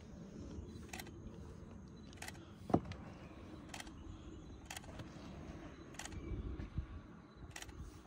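Shovel working damp, dark earth: faint scraping and shifting of soil, with one sharp knock about three seconds in.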